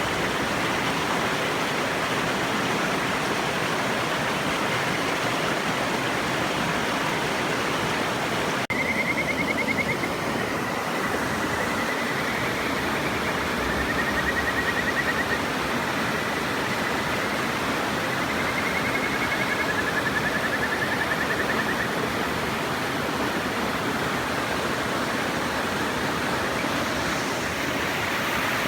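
Steady rush of river water; from about 9 seconds in, Kajika frogs (Buergeria buergeri) give several high, trilled whistling calls, some overlapping, which stop a little after the middle.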